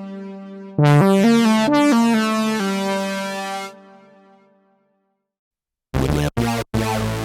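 Modal Electronics Cobalt8 virtual analog synthesizer playing. A held note drops away, then about a second in a quick run of stepped arpeggio notes rings out and fades over a few seconds. After a short silence, choppy chords are cut sharply on and off near the end.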